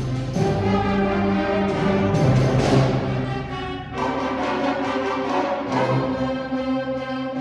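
Junior high concert band of woodwinds, brass and percussion playing sustained chords. The music swells to a loud peak about three seconds in, eases back briefly, then carries on.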